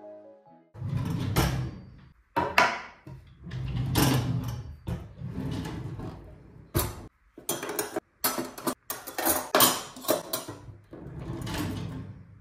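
Kitchen tidying sounds: cutlery and utensils clinking as they are put away, and a kitchen drawer and cabinet door sliding and knocking. It comes as an uneven run of sharp knocks and short scrapes, busiest in the middle.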